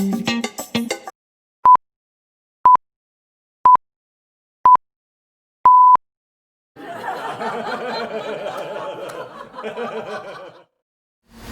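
Sound-effect clips in turn: the tail of a guitar music clip stops about a second in, then five electronic beeps at one pitch a second apart, the last one longer, like a countdown timer. After a short gap comes about four seconds of laughter.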